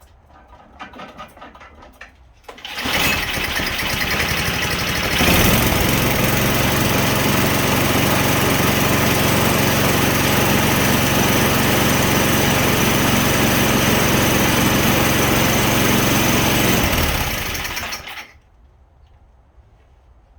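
A motor starts suddenly, runs steadily for about fifteen seconds, then winds down and stops.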